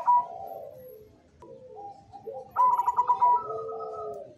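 Zebra dove (perkutut) cooing in full song: one phrase ends just as it begins, and about a second and a half in another starts with a few short notes, a loud, fast stutter of notes, then longer coos that slide lower.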